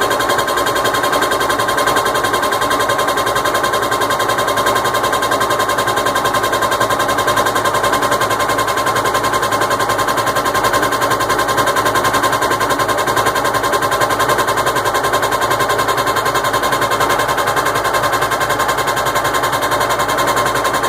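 GE washing machine running with a loud, fast, even mechanical clatter over a steady whine, unchanged throughout: the fault noise that persists after several of its parts were replaced.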